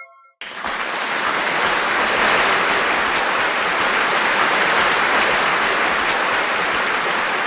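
A steady, even hiss of noise with no tone in it, starting suddenly about half a second in and holding level throughout.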